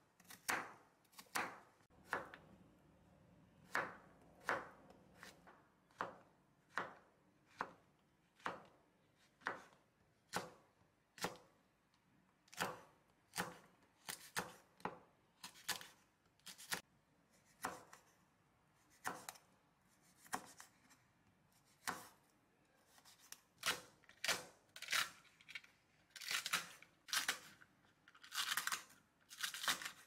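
Kitchen knife chopping Korean radish and then green chili peppers on a wooden cutting board: slow, uneven knocks of the blade on the board, about one a second, coming quicker in the last few seconds. The cook calls her knife work clumsy and says the knife needs sharpening.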